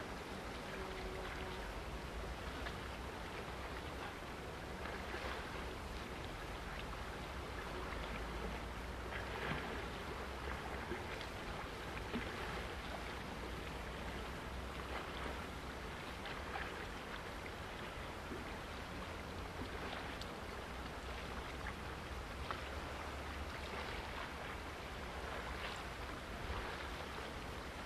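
Wind buffeting the microphone as a steady low rumble, over the wash of choppy water along the shore, with faint scattered splashes.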